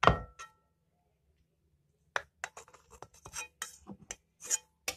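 Knife clinking against a metal cake tin while cutting a slice of baked cake: one ringing clink at the start, then a run of small irregular clicks and taps from about two seconds in.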